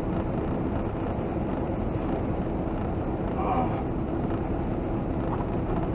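Steady drone of a semi truck at highway speed, heard from inside the cab: engine hum mixed with tyre and road noise.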